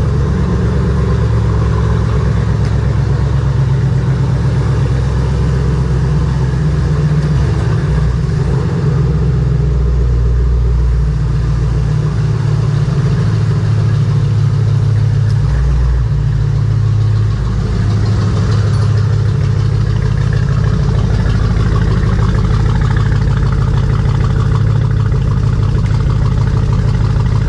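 Jeep Grand Cherokee SRT's HEMI V8 with a Borla exhaust, idling after a cold start. It gives a steady, loud, deep rumble whose pitch shifts slightly a few times.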